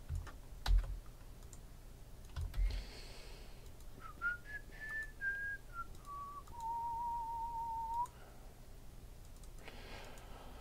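A man whistling a short tune: a few stepping notes that fall to one long, slightly wavering held note. Before it come a few computer mouse clicks and soft desk thumps.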